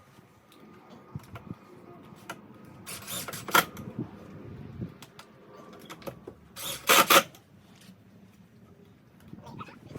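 Scattered clicks and knocks of timber and tools being handled, with two short, loud scraping bursts about three and seven seconds in.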